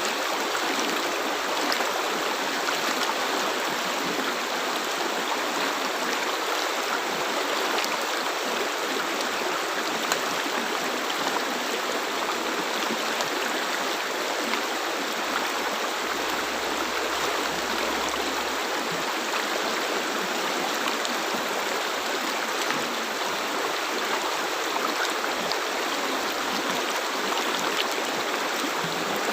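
River water flowing and rushing over rocks: a steady, unbroken rush with fine gurgling detail.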